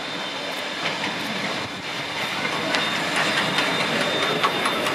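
Double-headed narrow-gauge steam train approaching and passing close, growing louder, with a steady high hiss and the wheels clicking over the rails more and more densely in the second half.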